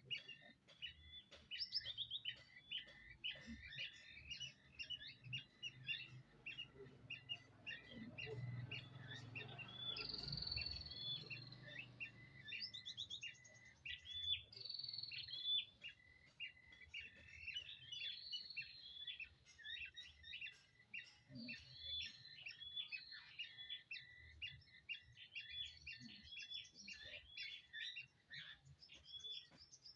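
Small birds chirping: a steady run of short, high chirps, about two a second, with a few falling whistles. A low rumble comes in around the middle.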